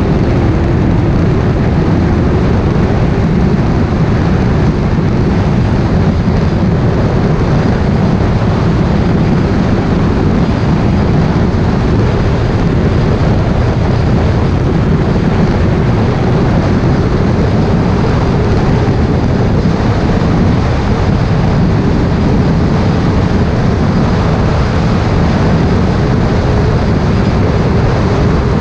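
Motorcycle cruising steadily at highway speed. Its engine drone is mixed into a loud, even rush of wind and road noise picked up by a camera mounted on the bike.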